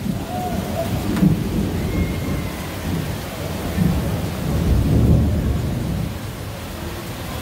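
Heavy tropical-storm rain with a deep rumble of thunder that swells about four to five seconds in.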